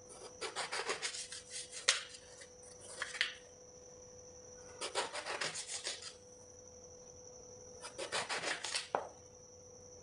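Kitchen knife sawing through an eggplant on a wooden cutting board: four bouts of quick rasping strokes, one per slice, with gaps between, and a sharp tick of the blade on the board about two seconds in and again near the end.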